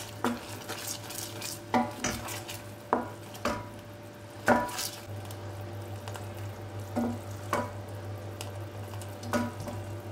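A wooden spoon stirring boiling caramel sauce in a stainless steel pot, knocking and scraping against the pot about nine times, with a short metallic ring after each knock. A faint sizzle from the bubbling caramel runs underneath.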